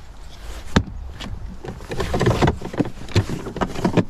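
Scattered clicks and knocks of tools being handled, over a steady low rumble.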